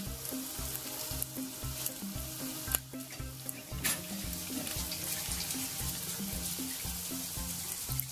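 Beef empanadas frying in plenty of hot oil in a pan: a steady sizzle and crackle of bubbling oil, with a few sharper pops near the middle. Background music with an even low beat, about two a second, runs underneath.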